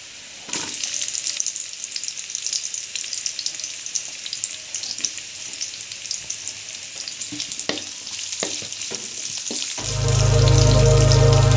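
Sliced garlic and onion sizzling in hot cooking oil in a wok. The sizzle picks up about half a second in, and a wooden spatula stirs and knocks against the pan a few times. Near the end, louder background music with steady tones comes in over it.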